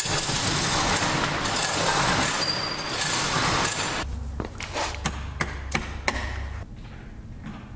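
A roll-up steel door being raised by its hand chain hoist, the chain and metal slats rattling. From about four seconds in come a run of sharp clicks as wall light switches are flipped.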